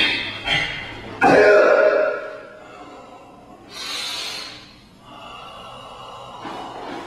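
A taekwondo practitioner's forceful breathing while performing the pattern Tae-Gye: short sharp breaths at the start, a loud voiced exhalation about a second in, and a long hissing breath out about four seconds in.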